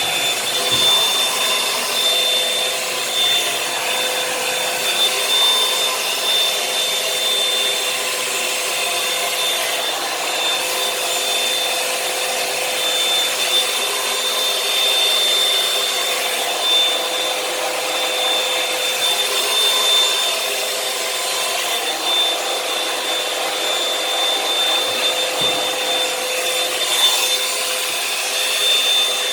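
Revlon One-Step hair dryer brush running steadily on a pass through the hair: a steady fan-motor whine with two held tones over rushing air.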